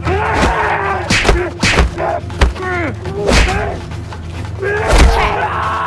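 Comic dubbed fight sound effects: a rapid series of thuds and slams, with short sliding voice-like cries between the hits.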